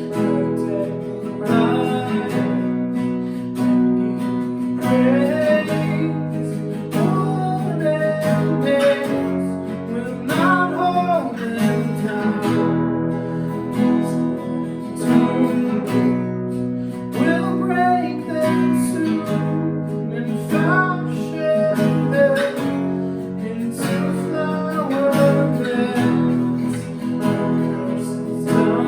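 Worship song: acoustic guitar strumming chords under a singing voice.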